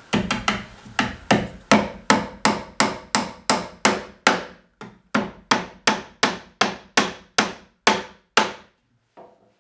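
Claw hammer driving nails into a wooden nesting box: a steady run of sharp, ringing blows, nearly three a second, with a brief break about halfway through before the strikes carry on and stop about a second before the end.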